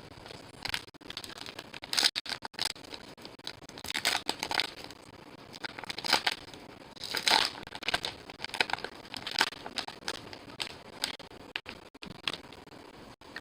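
Foil wrappers of baseball-card packs being torn open and crinkled, in irregular crackling bursts.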